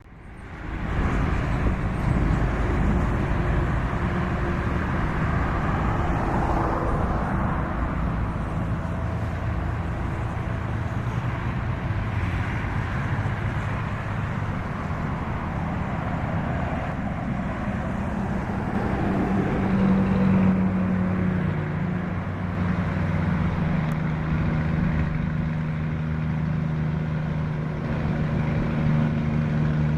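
Truck engine running with a deep, rumbling exhaust note. About two-thirds of the way in it settles into a steadier, even-pitched drone.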